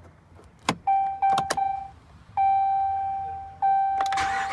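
Pickup truck's dashboard warning chime sounding a steady electronic tone several times after the key is turned to on, with a few clicks from the key in the ignition. Near the end the starter begins cranking the 5.7-litre V8.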